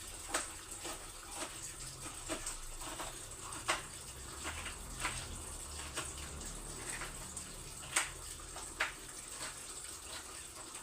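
Water running steadily from a kitchen tap, with a scattering of short, sharp clinks and knocks.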